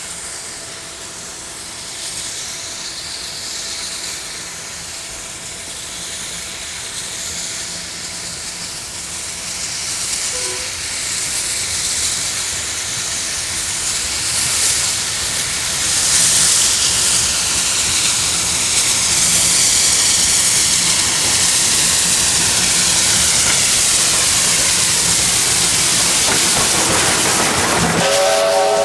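SY-class 2-8-2 steam locomotive working a train of coal hoppers as it approaches and passes close by: a steady hiss of steam that grows louder and is at its loudest from about halfway through. A short pitched note sounds just before the end.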